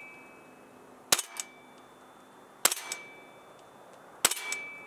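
Tokyo Marui MWS gas blowback airsoft rifle on green gas, stock rocket valve, firing three single shots about a second and a half apart, each a sharp crack followed by a couple of quick clacks of the bolt cycling and a brief high tone. The shots are going through the chronograph at roughly 335 to 350 feet per second.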